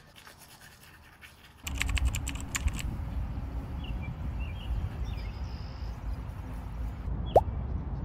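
Faint scratching of a toothbrush on a dog's teeth. About two seconds in, a steady low wind rumble on the microphone outdoors takes over, with a short spell of rustling clicks, a few faint bird chirps, and one short rising whistle near the end.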